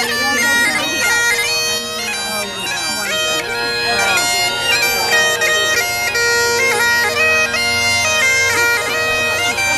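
Great Highland bagpipes playing a tune, the melody stepping from note to note over a steady drone.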